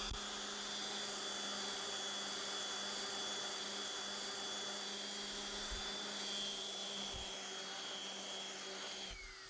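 DeWalt random orbit sander running steadily as it sands a wooden box lid, a constant motor whine over the rasp of the pad. Near the end it is switched off, and its pitch falls as it winds down.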